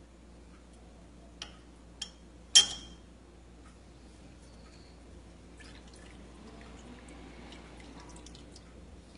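Lemon juice squeezed from a metal hand-held lemon squeezer and dripping into a glass bowl of cream and condensed milk. Three sharp ringing clinks of metal against the glass, the third the loudest, come about a second and a half to two and a half seconds in, followed by soft dripping and small ticks.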